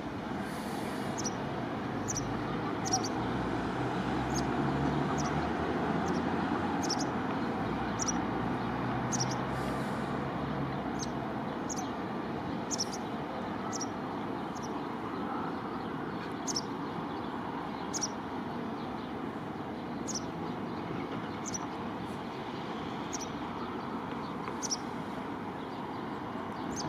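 A small bird giving short, high chirps about once a second over steady traffic noise; a vehicle engine rumbles louder for several seconds near the start, then fades.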